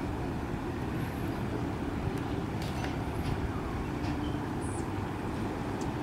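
Steady low rumble of outdoor background noise, with a few faint, short high ticks.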